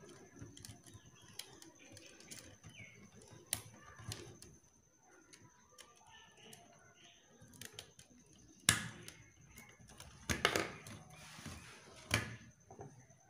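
Hands handling insulated electrical wires on a plastic switchboard: faint rustling and small clicks, with a few sharper clicks and taps in the second half.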